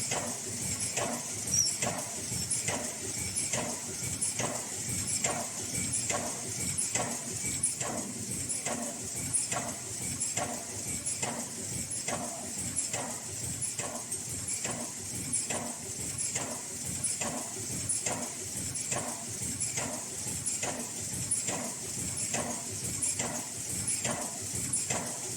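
High-speed N95 mask-making machine running, with a regular clacking about one and a half times a second over a steady high hiss.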